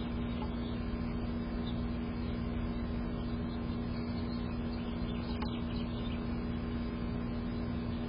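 Steady low hum with even hiss, with a single faint tap about five and a half seconds in.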